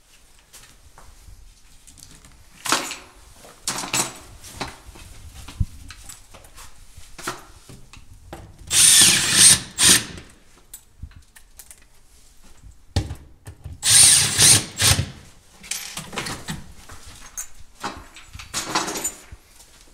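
Power drill driving screws into a kitchen cabinet: two runs of about a second each, with a high whine, one near the middle and one a few seconds later. Shorter knocks and handling clatter come between them.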